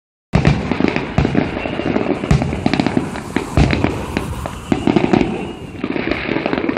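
Aerial fireworks bursting overhead: a dense run of bangs and thuds over continuous crackling, starting abruptly about a third of a second in.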